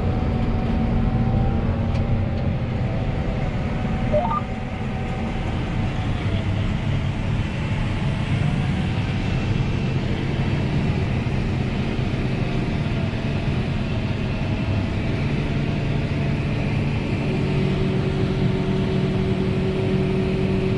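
John Deere 8R 410 tractor's diesel engine running, heard from inside the cab as a steady hum with a whine. A short rising chirp sounds about four seconds in, and the engine note shifts to a new pitch about three quarters of the way through.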